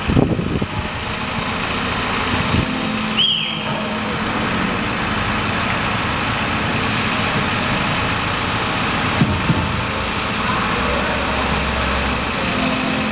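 Mobile crane's engine running steadily while it holds a long timber roof beam in the air. About three seconds in there is a short falling squeal.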